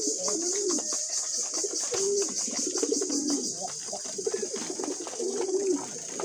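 Several pigeons cooing, their low rising-and-falling coos overlapping one after another, with many small clicks and a steady high hiss underneath.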